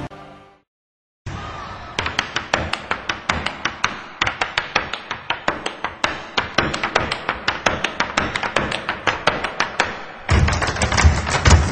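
A darts crowd clapping in rhythm, a quick, even beat of handclaps, after a short fade of music and a moment of silence. About ten seconds in, the clapping grows louder and fuller.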